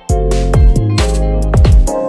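Electronic background music with deep bass drum hits that drop in pitch, over held notes.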